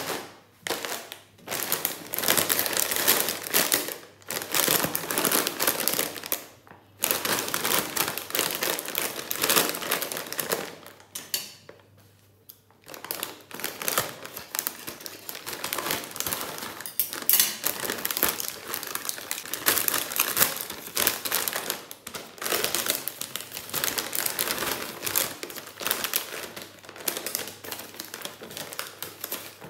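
Large foil-lined Lay's potato chip bag crinkling loudly as hands squeeze, turn and pull at it, in repeated bursts with brief pauses between them.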